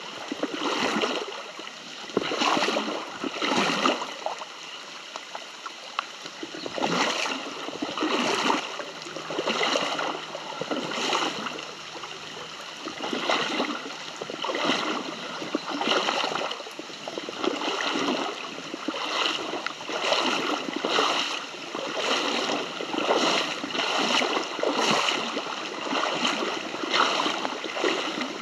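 Footsteps splashing through shallow, flowing creek water, roughly one step a second, over the steady rush of the stream.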